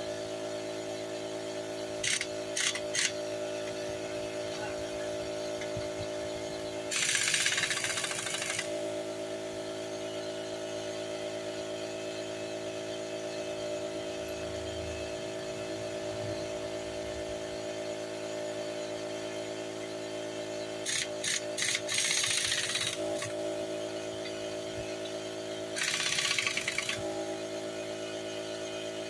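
Tool work on a van's brake assembly: three short rasping bursts and a few clicks over a steady hum.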